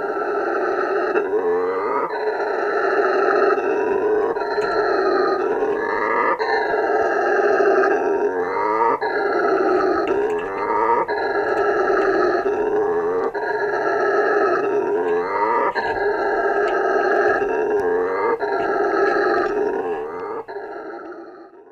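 Howler monkey roaring: one continuous, loud, rough roar that swells and dips in a regular cycle about every two seconds, fading out near the end.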